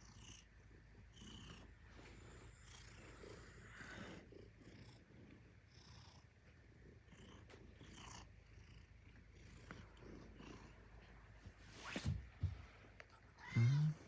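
A Maine Coon cat purring steadily, with a sharp knock about twelve seconds in and a short pitched call near the end.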